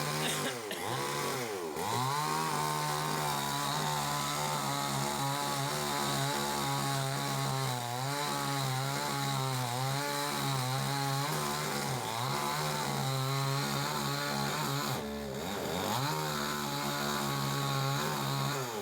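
Chainsaw running at high revs, cutting dead tree wood. Its engine note dips and climbs back twice, once about half a second in and again about fifteen seconds in.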